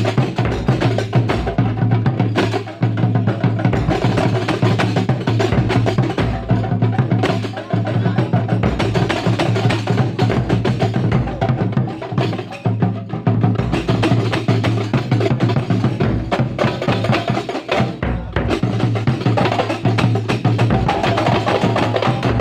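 Kuntulan percussion ensemble playing a dense, continuous drumming rhythm on frame drums and hand drums, over a steady low hum.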